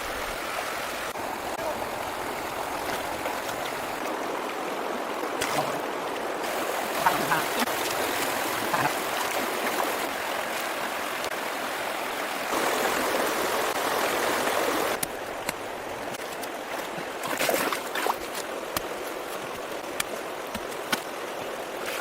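Water rushing and splashing steadily, with scattered sharper splashes; the sound shifts abruptly several times.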